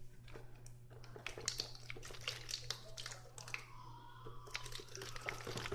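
Plastic bottles and their screw-on tornado-tube connector being handled: scattered light clicks and taps over a faint low steady hum.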